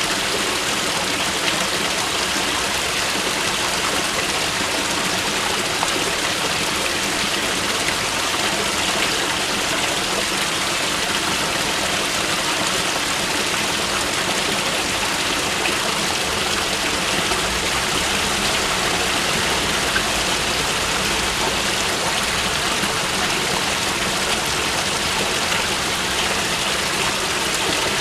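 A mountain river rushing steadily over rocks.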